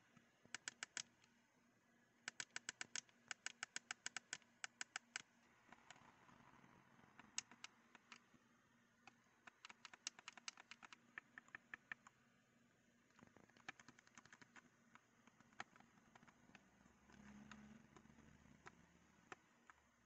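Gamesir G7 SE controller's small plastic buttons and D-pad clicking under a fingertip, in quick runs of about five presses a second with pauses and single clicks between.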